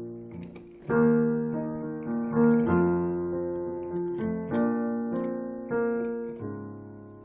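Piano playing a slow passage of chords, each struck and left to ring and fade; it grows quieter toward the end.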